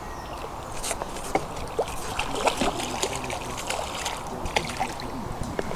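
Light splashing and trickling water with scattered small clicks, as a hooked roach is played and landed.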